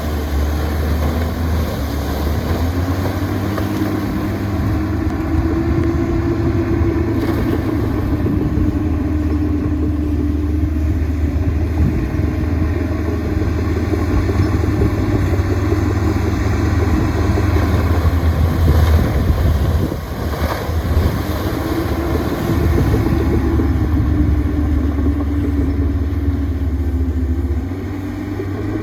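Heavy diesel engine of earthmoving machinery running under load, a deep steady hum with the revs rising and easing off twice, about six seconds in and again near the end.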